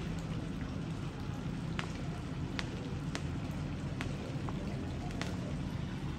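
Small fireworks popping: short, sharp cracks about once a second over a steady low hum.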